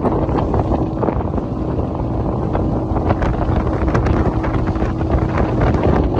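Motorboat running at speed: a steady engine hum under heavy wind buffeting the microphone.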